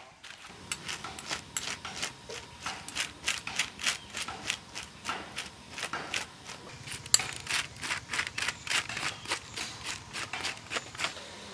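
A metal spoon scraping goat tripe on a plastic sheet, in a quick run of rough, rasping strokes about four a second, with one sharper stroke about seven seconds in.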